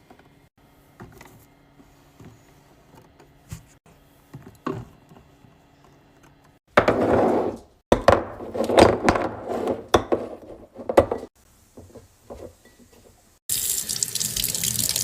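Water running from a tap in several bursts, after a few seconds of light handling clicks. The last burst is a brighter, even hiss.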